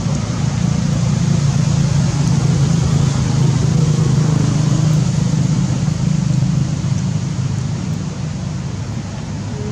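A low engine hum over a steady background rush, loudest in the middle and fading away after about seven seconds.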